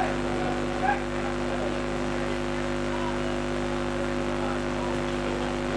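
A steady hum of several held tones, unchanging throughout, with faint distant shouts of voices about a second in.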